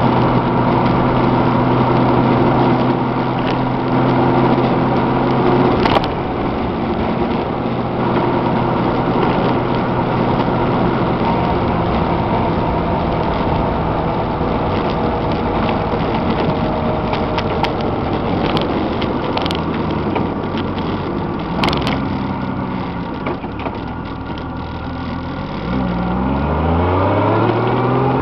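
Honda Gold Wing GL1500 flat-six engine running under a steady haze of wind and tyre noise while riding, with new Kenda Kruz tyres that the rider suspects of being noisy. The engine note sinks slowly as the bike slows, then climbs steeply as it speeds up again near the end.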